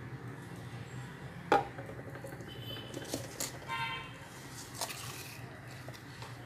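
Plastic jar of corn flour being handled: one sharp click, then several lighter clicks and short rasping scrapes, over a low steady hum.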